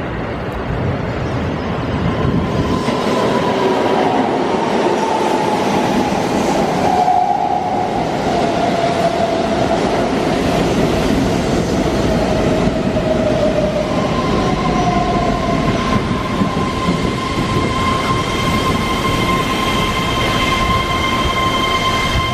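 Keihan 13000-series electric train running into a station platform: a rumble of wheels on rail and a motor whine that falls slowly in pitch as the train brakes. About two-thirds of the way through, a steady high-pitched tone joins in.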